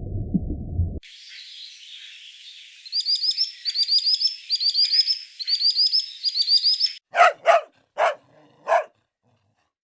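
A low rumble cuts off about a second in. Then birds chirp in quick, repeated phrases of rising notes. Near the end a dog barks four times.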